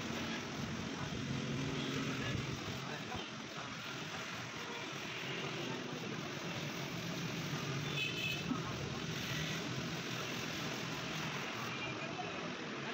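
Street traffic noise from passing road vehicles, steady throughout, with voices in the background and a brief higher tone about eight seconds in.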